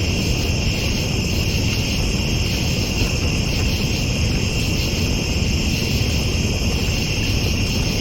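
Steady night chorus of crickets and other insects, several high continuous trills at once, over a constant low rumble.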